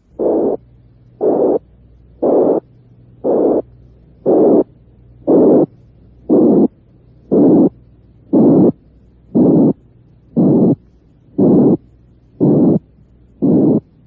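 Demonstration heart murmur: a repeating burst of noise about once a second, each lasting about a third of a second. Its band of noise widens over the bursts, reaching higher, to show a murmur becoming harsher as its frequency band broadens.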